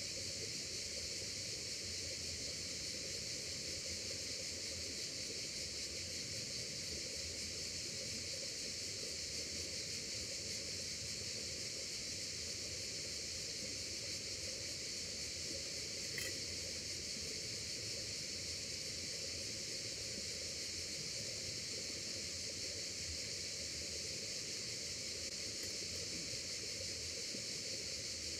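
Steady, unchanging rush of flowing river water, with one small click about halfway through.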